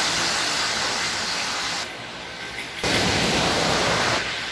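Giessbach Falls: a steady rush of falling water. It drops away abruptly about two seconds in, comes back a second later, and falls lower again near the end.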